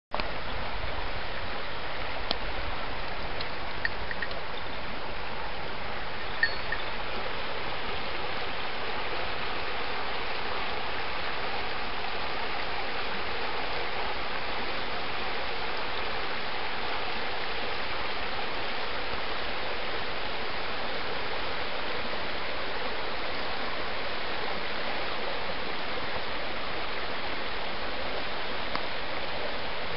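Shallow mountain river running steadily over a stony bed, an even rush of water. A few faint, brief ticks sound within the first seven seconds.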